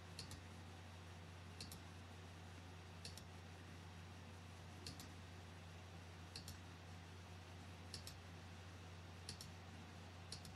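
Faint computer mouse clicks, about eight of them spaced a second or two apart, each a quick press-and-release double tick, over a low steady hum.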